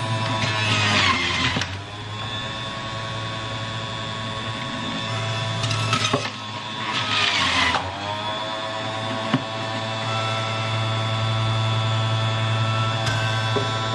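Philips electric centrifugal juicer running with a steady motor whine and hum. Twice, about half a second in and again about seven seconds in, a louder grinding burst as produce is pushed down the feed chute, the motor's pitch dipping under the load and then recovering.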